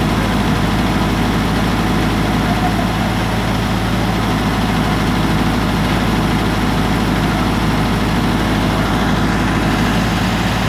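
Tadano truck crane's diesel engine running steadily at a constant low speed.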